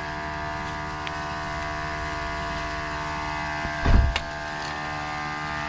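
A steady droning hum from a running machine, with one heavy clunk about four seconds in as a hand-ratchet cable puller hooked to the car is put under tension.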